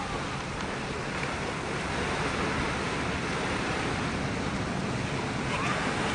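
Small ocean waves breaking and washing up a sandy beach: a steady rush of surf, a little louder from about two seconds in.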